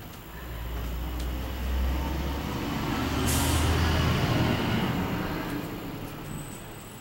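A heavy vehicle passing by, a low engine rumble that swells and then fades, with a short air-brake hiss about three seconds in.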